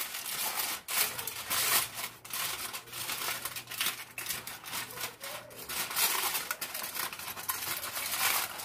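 Aluminum foil crinkling and rustling in irregular crackles as hands press and crimp it down around the rim of a pan.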